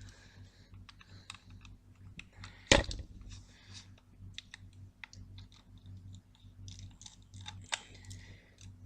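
Small T6 Torx screwdriver working the last screws out of a hard drive's metal case: a run of small clicks and scrapes, with one sharp knock about three seconds in and a smaller one near the end.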